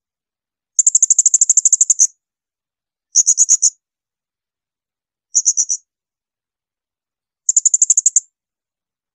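Blue-crowned hanging parrot (serindit) giving shrill, rapid trills: four bursts of high piercing notes, about ten notes a second. The longest burst starts about a second in and lasts over a second; the others are shorter.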